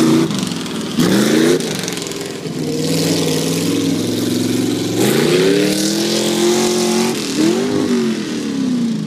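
Chevrolet pickup truck engine revving hard under acceleration, its pitch climbing and dropping back about three times as the driver gets on and off the throttle, the rear tyres spinning in loose dirt.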